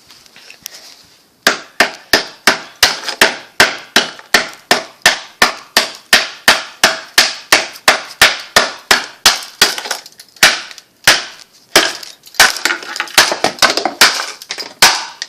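Hammer pounding on a block of ice in rapid repeated blows, about three a second, starting about a second and a half in with a few short breaks.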